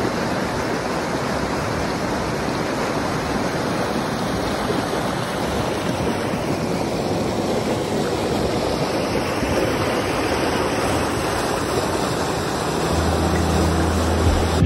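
River rapids: fast water rushing steadily over rocks. Music with low sustained notes comes in under it near the end.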